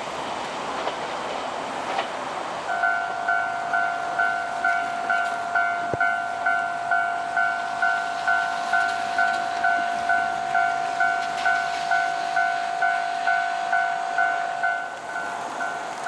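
Japanese railway level-crossing alarm ringing: a rapid two-tone electronic clang, about two strikes a second, starting about three seconds in. Before it, and fading under it, the running noise of a departing KiHa 47 diesel railcar on wet track.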